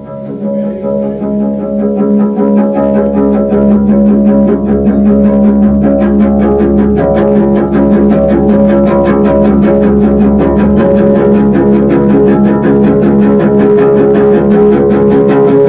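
Double bass played with the bow: sustained low tones that swell over the first few seconds, then hold loud with a fast, even pulsing in the bowing.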